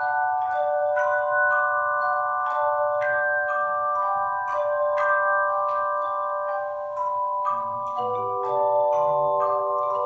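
Handbell choir playing a tune: bells struck one after another about twice a second, each note ringing on under the next so that several tones sound together. Lower bells join in near the end.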